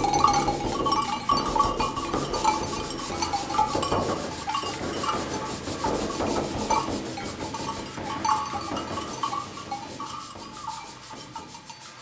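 A tornado sound effect: a continuous rasping, rattling noise with a wavering whistle, fading away over the last few seconds.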